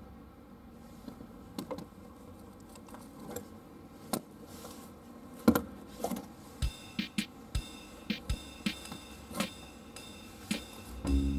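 Hands pushing a plastic wiring connector onto an LED fog-light bulb: scattered plastic clicks and knocks, with no distinct latching click, so the connector's seating is uncertain. Acoustic guitar music starts near the end.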